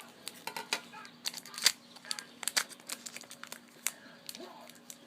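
Trading cards and their pack wrapper being handled, making irregular quick crinkles and snaps, the loudest about one and a half seconds in.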